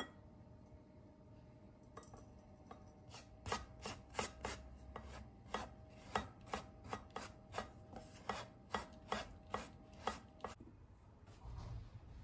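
Wooden spoon pressing and stirring thick cheesecake batter through a fine metal mesh sieve, with quick repeated scraping strokes, about two to three a second, that stop shortly before the end.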